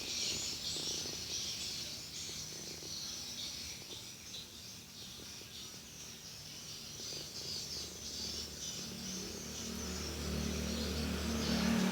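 Feral kitten purring, a low rumble that is faint through the middle and grows louder near the end, over a faint high hiss.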